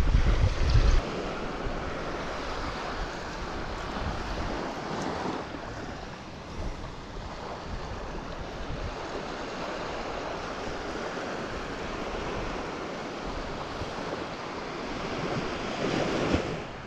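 Surf washing on the shore and wind blowing over the microphone, with a heavy low buffet of wind in the first second.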